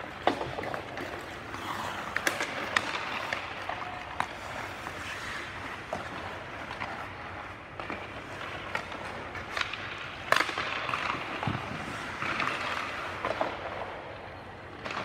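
Ice hockey skates scraping and carving on the ice, with scattered sharp cracks of sticks striking pucks and pucks hitting the boards. The loudest crack comes about ten seconds in.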